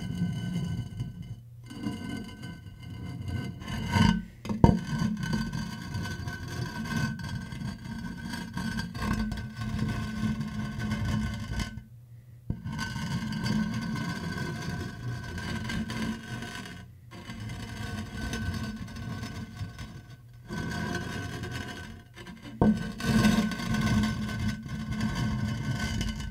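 Ceramic toilet cistern lid scraped back and forth across the top of the tank: a grinding rub with a few steady ringing tones, in several long strokes broken by short pauses, and one sharp knock about four and a half seconds in. It is a foley stand-in for a heavy tombstone slab sliding, and the rub is fairly high-pitched.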